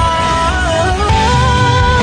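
Mandarin pop song playing with full band backing and a steady beat, a melody line held with vibrato between sung phrases.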